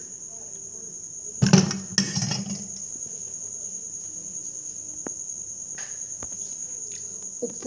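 Steady high-pitched insect trilling, typical of crickets, with a couple of short knocks about one and a half and two seconds in.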